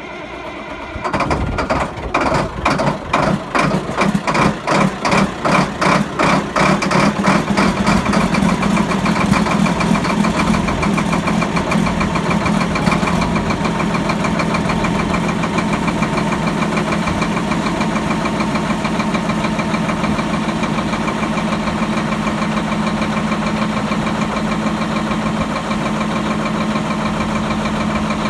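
Caterpillar motor grader's diesel engine on a cold start: it catches about a second in, runs in heavy, lumpy pulses for several seconds, then smooths out into a steady idle.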